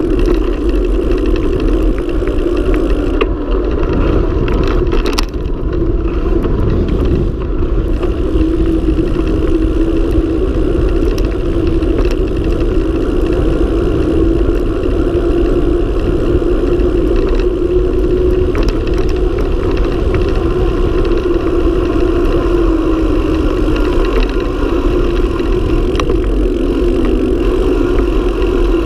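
Wind rushing over the camera microphone and tyre noise on asphalt from a mountain bike descending fast, a loud steady rush with a few light knocks from bumps in the road.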